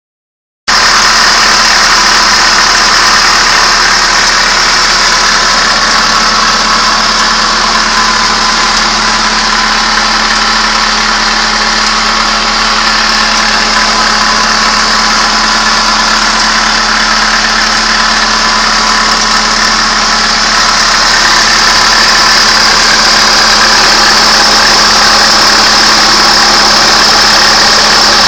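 2002 Hyundai Accent's four-cylinder engine idling steadily, with the clicking noise from the engine that the owner is recording. The sound starts abruptly just under a second in.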